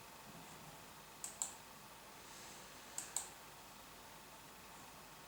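Computer mouse clicking, two quick pairs of clicks about a second and a half apart, over faint room hiss.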